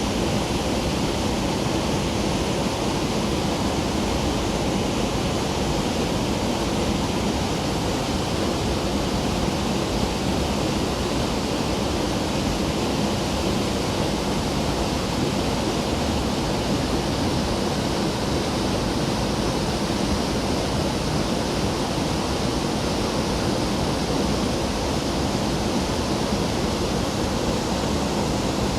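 A waterfall pouring into a pool, a steady unbroken rush of falling water.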